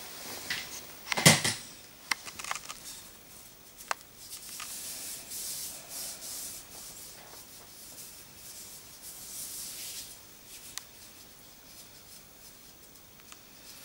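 Gloved hands rubbing and stroking the skin of a bare foot and toes, soft brushing sounds in short spells, checking that the drilled nails are smooth. A sharp knock about a second in.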